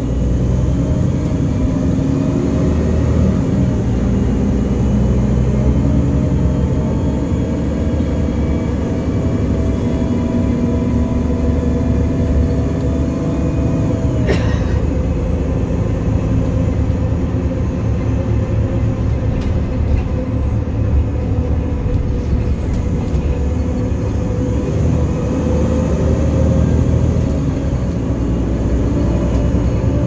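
City bus driving, heard from inside: a steady engine and road rumble. A faint whine stops with a sharp click about halfway through, and a few light clicks follow.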